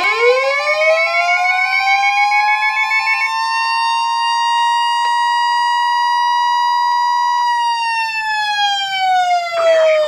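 NOAA Weather Radio warning alarm: a steady 1050 Hz alert tone that stops about seven seconds in. Over it, a receiver's pulsing beep alarm runs for the first three seconds, and a siren-style alert winds up within the first second, holds, then winds down from about seven and a half seconds in.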